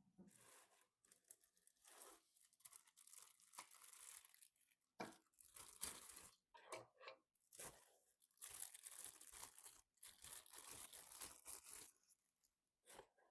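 Faint crinkling and tearing of handled packaging, in irregular bursts with short pauses, stopping a little before the end.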